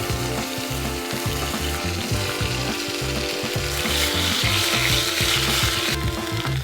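Meatballs sizzling in hot oil in a pan, the hiss swelling for a couple of seconds past the middle. Background music with a steady beat runs underneath.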